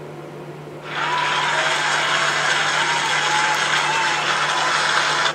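Crowd applause with some cheering, coming in about a second in and cutting off abruptly at the end, like an edited-in applause effect.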